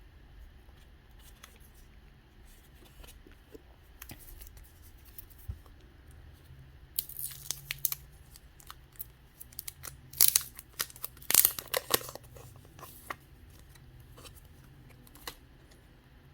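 Thin plastic wrapper being torn and crinkled by hand in short scratchy bursts, mostly in two clusters, about seven seconds in and again around ten to twelve seconds in.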